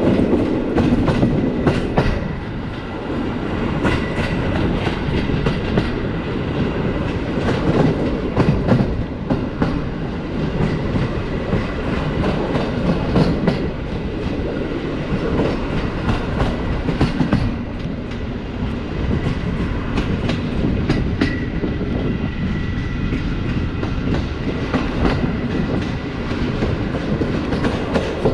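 Passenger train coach running at speed: steady rumble of the wheels on the rails with a constant irregular clatter of knocks and taps as the wheels cross rail joints and track irregularities.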